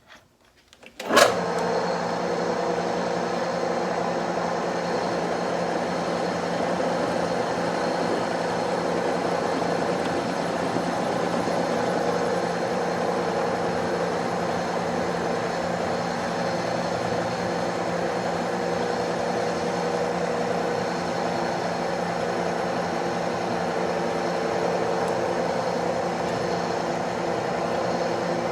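Metal lathe switched on with a click about a second in, then running steadily while a center drill is worked into the spinning workpiece to re-center a drilled hole.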